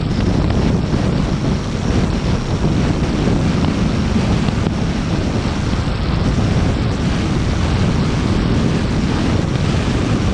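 Steady road and wind noise from a moving car, with wind buffeting the microphone.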